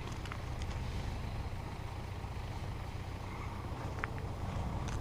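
A four-wheel-drive's engine running steadily at idle, a low even rumble, with a few faint clicks over it.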